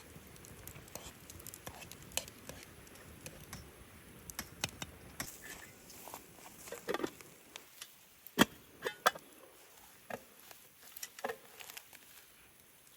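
First raindrops of a light rain falling: scattered, irregular taps and light pattering, with a few louder single drops past the middle.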